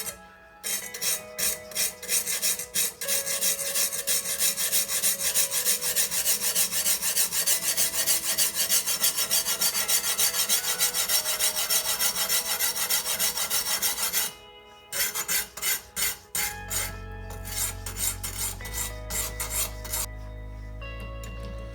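Sharpening stone on a guided sharpening system rubbing along a kitchen knife's steel edge in rapid back-and-forth strokes, several a second. The strokes pause briefly near the middle, then resume more softly toward the end.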